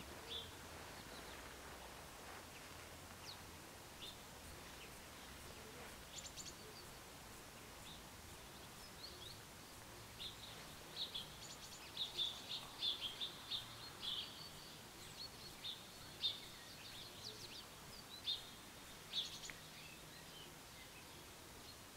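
Small songbirds chirping in short, irregular high calls, a few at first and a busy cluster about halfway through, over faint steady background noise.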